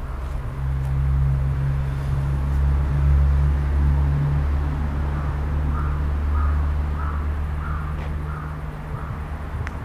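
A bird calling about six times in quick succession, roughly two calls a second, over a steady low rumble that is the loudest sound throughout.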